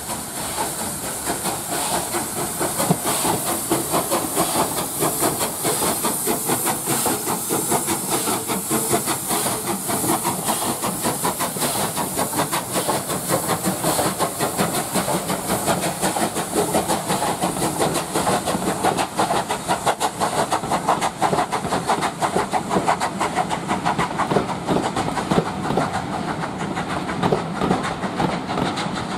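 Bulleid Pacific steam locomotive working hard past at speed, its rapid exhaust beats mixed with loud steam hissing from the cylinders. The hiss fades near the end as the train of coaches rolls by with wheels clicking over the rail joints.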